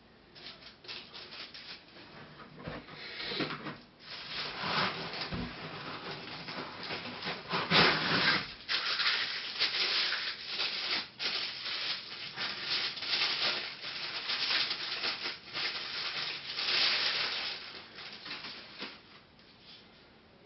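Packaging being handled during an unboxing: irregular crackly rustling and scraping that grows louder after a few seconds, with two louder stretches, and dies down near the end.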